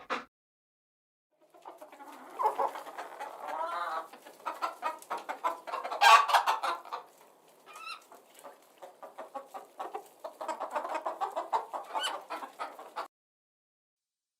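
Chickens clucking in quick runs of short calls, with a louder call about six seconds in; the clucking starts after a second and a half of silence and stops about a second before the end.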